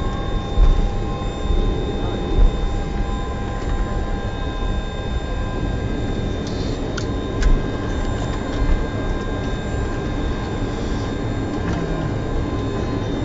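Steady flight-deck noise of an Airbus A300 on the ground with its engines running: a low rumble under a few thin, steady high whines, broken by a few short low thumps.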